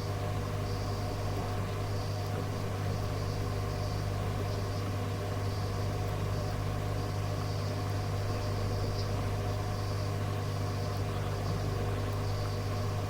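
Steady low hum with faint hiss from a radio receiver recording in a gap between transmissions, with no change in level throughout.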